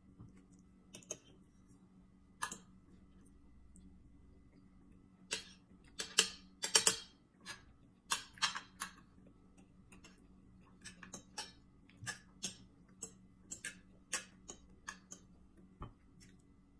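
Metal spoon clinking and scraping on a plate as food is scooped up, with a busy cluster of clicks about six to nine seconds in, and close-up chewing and mouth clicks in between.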